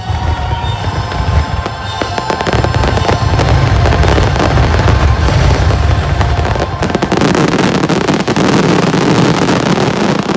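A rapid barrage of fireworks bursts over music. About seven seconds in, the low booming gives way to a dense crackling.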